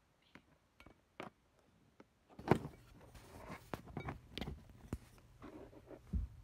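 Handling noise from a phone camera being picked up and set back in place: scattered clicks and knocks with low rubbing and rustling, getting busier about two and a half seconds in, and a dull thump near the end as it is set down.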